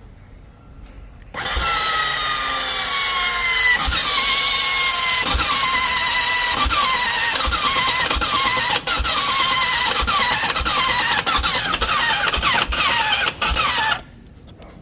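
BMW F800GS parallel-twin being cranked by its starter for about twelve seconds without firing, under a loud high-pitched whine that keeps sliding down in pitch, with low thumps about once a second. It then cuts off suddenly. This is the strange noise of a bike that won't start.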